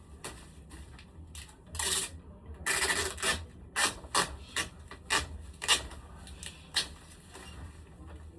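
A run of short, brisk rubbing or scraping strokes, some single and some in quick groups, most of them in the middle few seconds, with a faint low hum underneath.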